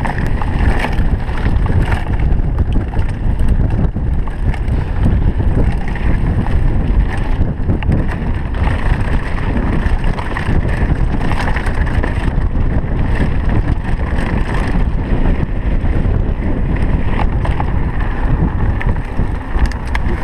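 Wind buffeting a handlebar-mounted action camera's microphone while a mountain bike is ridden fast over rough, stony track, with tyre rumble and frequent rattles and knocks from the bike.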